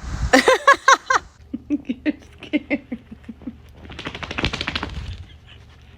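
A cat making a quick run of short chirping calls, then a faster string of short low chirps, then a brief scratchy rustle.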